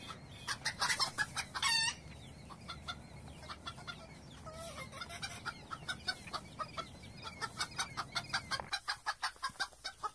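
Chickens clucking in quick runs of short clucks, with one longer, wavering squawk about two seconds in.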